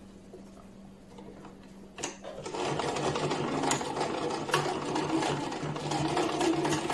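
Electric domestic sewing machine, quiet at first. After a click about two seconds in, it starts up and runs steadily, stitching a short seam while the reverse-stitch button is held for a backstitch.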